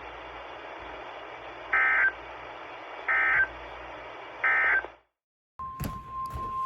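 Emergency Alert System end-of-message code: three short bursts of screeching digital data tones about 1.3 seconds apart, over a steady radio hiss. The sound then cuts out, and after a brief silence a steady single alert tone begins near the end, with a few clicks.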